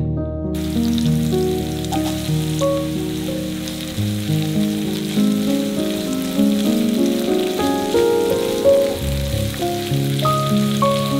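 Oil sizzling as food fries in a pan, starting about half a second in, under background music of held notes.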